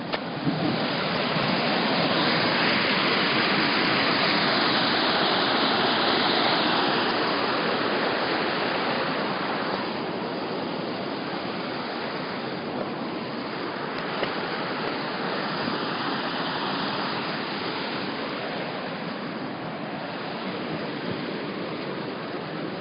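Rainwater runoff rushing over sandstone rock in a steady rush, a little quieter after the first half.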